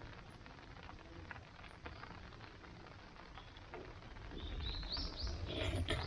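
A small bird chirps a few short rising notes about two-thirds of the way in, over a low rumble and scattered light clicks. Near the end comes a louder spell of clattering knocks.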